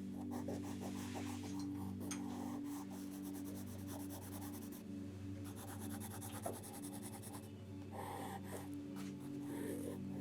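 Sketching on paper: irregular scratchy strokes of a drawing tool across the sheet, over a steady low hum.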